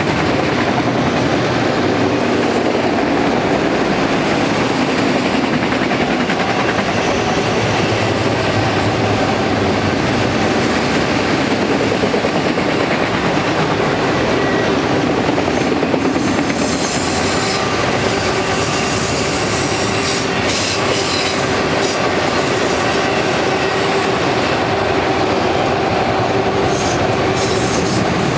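Freight train of auto-rack cars rolling past close by: the steel wheels clatter steadily over the rail joints. Higher-pitched noise joins in about halfway through.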